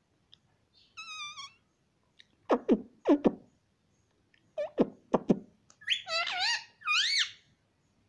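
Indian ringneck parakeet calling: a short warbling call about a second in, then quick sharp chirps that sweep down in pairs twice, and longer wavering squawks near the end, the loudest of the series.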